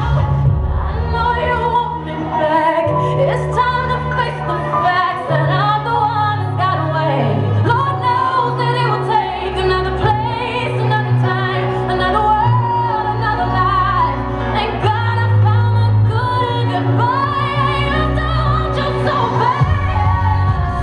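Music: a solo singer with wide, swooping pitch over a bass line that steps from note to note every second or two.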